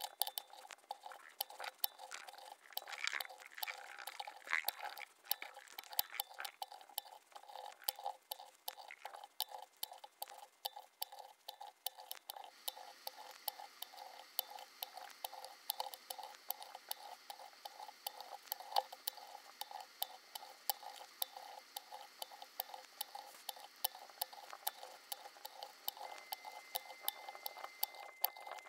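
Many faint, quick clicks and ticks of resistor wire leads being handled, bent and pushed into the holes of a circuit board, several a second.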